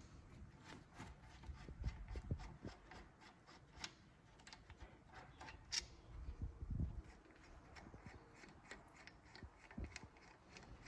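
Irregular small clicks, scrapes and a few dull knocks of hand tools and metal brake parts being handled as a front brake caliper is unbolted and pulled off the disc.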